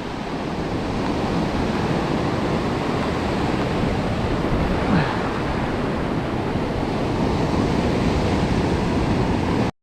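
Steady wash of ocean surf on a beach, with wind. It cuts off abruptly near the end.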